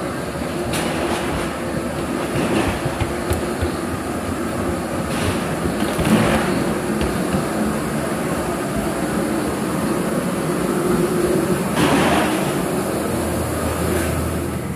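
Steady mechanical drone and rumble inside an airport jet bridge as it is walked through, with scattered footsteps and knocks on the bridge floor.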